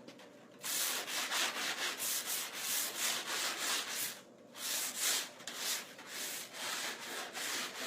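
Sanding block rubbed quickly back and forth along the edge of a new pre-primed vinyl shutter, about four strokes a second, cleaning little bits of plastic off the edge. The strokes stop briefly a little past halfway, then carry on.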